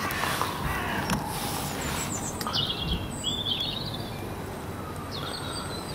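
Outdoor background noise with small birds chirping now and then, mostly around the middle of the stretch and again near the end, along with a few light clicks.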